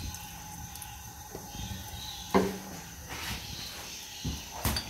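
Sharp metal clanks as the aluminium lid is put on a pressure cooker: one loud clank with a short ring a little over two seconds in, and a smaller double knock near the end, over low room hiss.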